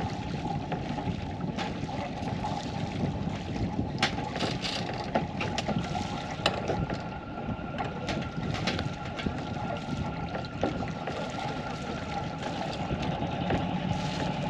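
A sailboat's inboard engine running steadily at low revs as the boat motors slowly into a berth, with scattered sharp clicks over the rumble.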